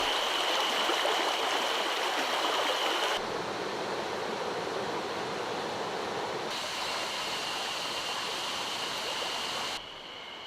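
Mountain stream rushing over rocks in a steady flow. The sound changes abruptly three times, about three, six and ten seconds in, getting quieter toward the end, and a thin high steady tone is heard in some stretches.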